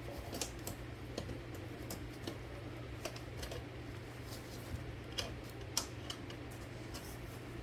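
Scattered light metallic clicks and taps at irregular intervals as the parts of a Smith Premier No. 10 typewriter carriage are handled, over a steady low hum.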